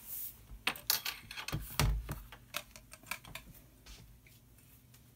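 Clicks and taps of laptops being handled: a MacBook Pro is lifted off a second laptop and set down on the table, with a heavier knock about two seconds in. The clicking thins out over the last second or two.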